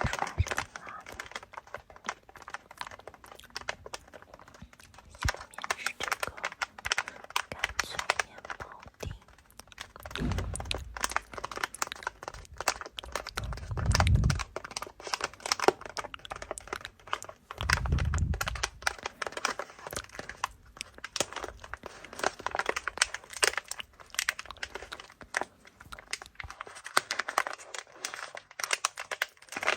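Close-miked ASMR crinkling and crackling: a dense run of small clicks and rustles, with a few dull low thumps about ten, fourteen and eighteen seconds in.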